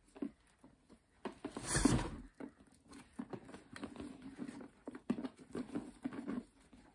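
Handling noise from a Louis Vuitton Neverfull MM coated-canvas tote: scratchy rustles and small clicks as its leather side laces are pulled through the hardware to cinch the sides, with one louder rustle about two seconds in.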